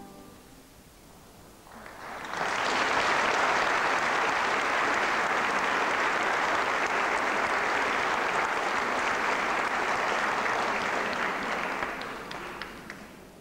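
Audience applauding: after a short quiet pause, clapping starts about two seconds in, holds steady and dense, then dies away near the end with a few last scattered claps.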